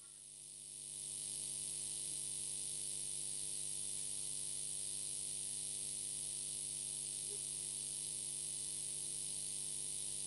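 Steady electrical mains hum with a high hiss, fading in over the first second and then holding even.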